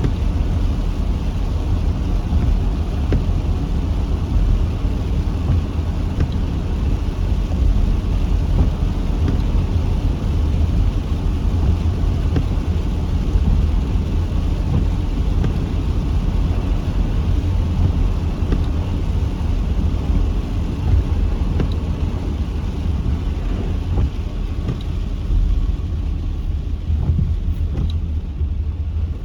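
Heavy rain falling, a steady dense hiss with a strong low rumble underneath and occasional faint ticks.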